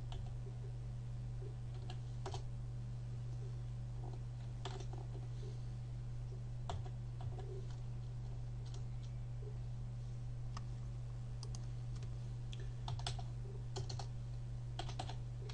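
Computer keyboard keystrokes, sparse and irregular, with a short cluster of several keys near the end, over a steady low electrical hum.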